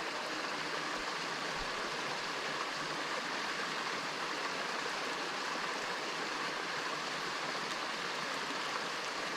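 Steady rushing of running water from a small waterfall.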